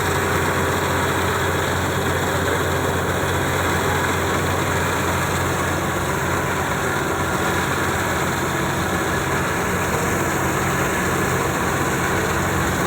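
Heavy farm machinery engine running steadily at an even speed, a constant low hum that does not change.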